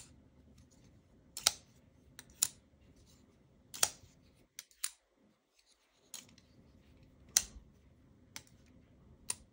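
Kizer Hic-Cup button-lock folding knife clicking as it is worked: about nine sharp, irregularly spaced metallic clicks. It is a slightly mechanical-sounding noise that the reviewer finds odd for this knife.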